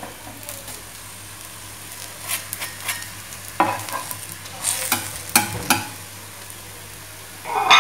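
Oil sizzling steadily under a paratha on a hot cast-iron tawa, on a slow flame. A metal spatula scrapes and taps on the pan several times in the middle.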